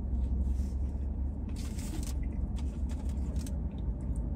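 A man chewing a soft grilled flatbread sandwich: faint mouth clicks and a brief rustle about a second and a half in, over a low steady hum.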